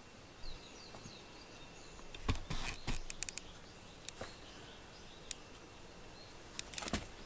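A cat batting and nosing a small plush toy bird across a foam floor mat: a quick cluster of soft knocks and rustles about two seconds in, a few single taps, and another cluster near the end.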